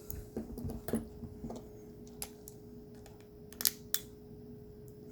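Small plastic clicks and light knocks from a small action camera and tools being handled during reassembly: a few in the first second and a half, then two sharp clicks about three and a half seconds in. A faint steady hum runs underneath.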